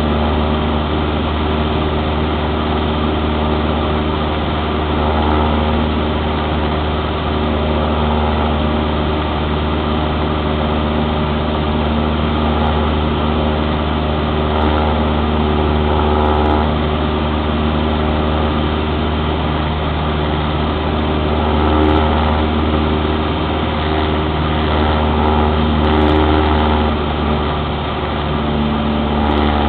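Cessna 172's piston engine and propeller running steadily, a constant drone with a strong low hum, heard from inside the cabin.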